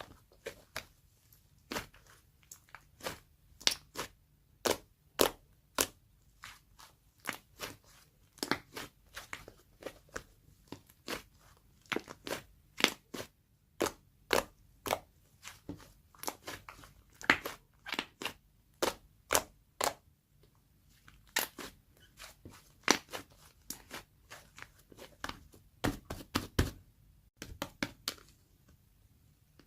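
Sharp, irregular crunches, about two or three a second, with brief pauses between runs.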